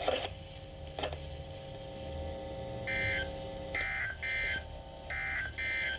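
Emergency Alert System SAME data tones received off a NOAA Weather Radio broadcast: five short, buzzy digital data bursts of about a third of a second each, starting about halfway through. Faint steady tones sound underneath before them.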